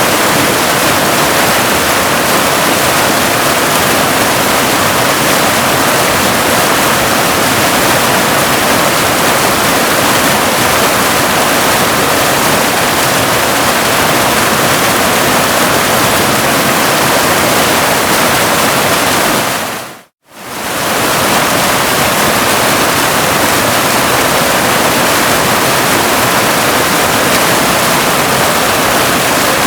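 Waterfall running with a loud, steady, even rushing hiss. About two-thirds of the way through it fades out to silence for a moment and fades straight back in, like a loop seam in the recording.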